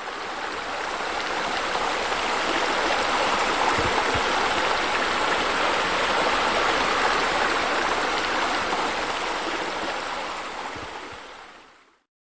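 Steady rush of splashing running water, fading in over the first couple of seconds and fading out shortly before the end.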